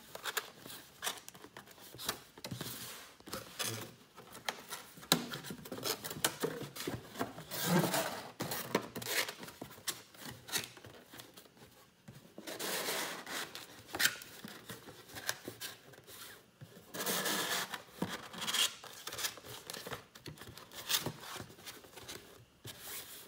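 A corrugated cardboard roll-in tray being folded by hand: the sides are creased, rolled in and pushed into place, with irregular dry scraping and rubbing of cardboard on cardboard in stretches of about a second, and short sharp clicks and taps in between.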